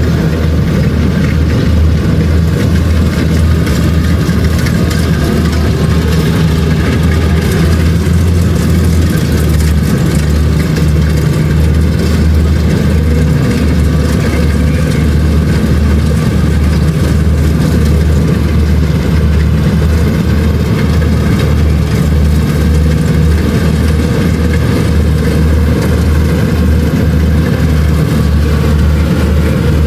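Kubota DC-70 Plus combine harvester's diesel engine running steadily, a loud, constant low drone without letup, while harvesting rice.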